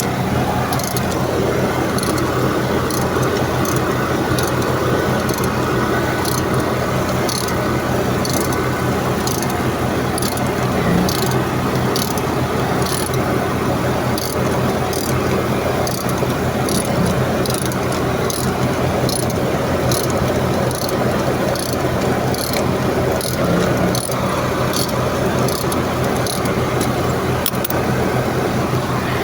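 Steady running machinery with a constant low hum and a regular light ticking, about one and a half ticks a second.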